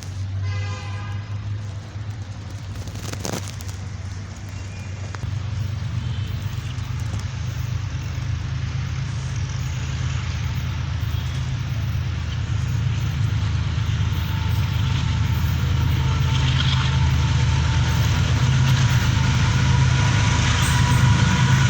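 Diesel-electric locomotive (Pakistan Railways GEU40) running with a deep, steady engine drone that grows louder as it pulls the train out. Faint steady whining tones join in about halfway through.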